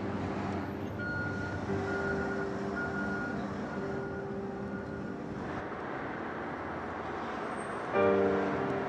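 Steady city street traffic noise, with a repeated high electronic beeping through the first few seconds. Pitched music-like tones come in louder near the end.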